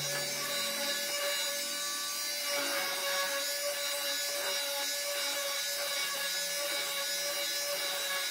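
Electric palm sander running at a steady speed with a constant motor hum, its sandpaper pad rubbing along the edge of a wooden ring.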